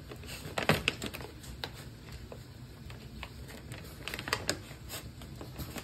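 A Shiba Inu rummaging and licking inside a plastic dog-food bag: irregular crinkling and crackling of the bag, with a few sharper, louder crinkles.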